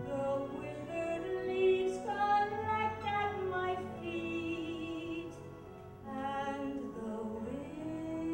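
A woman singing a slow theatre ballad, holding long notes with vibrato over a soft, steady accompaniment; the voice drops away briefly about six seconds in before the next phrase begins.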